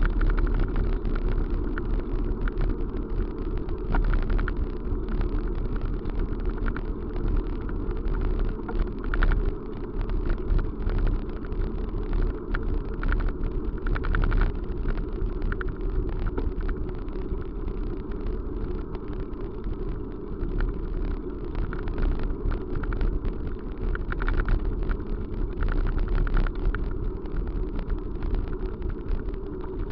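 Steady low rumble of a moving vehicle, with frequent small rattles and knocks throughout.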